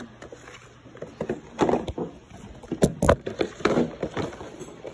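Handling noise: several sharp knocks and scuffs as the plastic blister pack of a toy monster truck is picked up off the table and the phone is moved.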